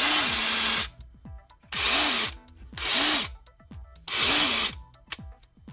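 Ridgid 18V SubCompact brushless impact driver in auto mode, run in four short bursts of under a second each, with a fifth starting at the end. Each burst is the motor spinning up and briefly hammering before the tool stops itself: the strange noise of auto mode sensing the load.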